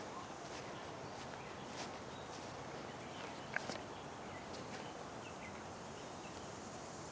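Light footsteps walking along a garden path over a steady faint outdoor hiss, with a few short bird chirps and one sharper click about halfway through.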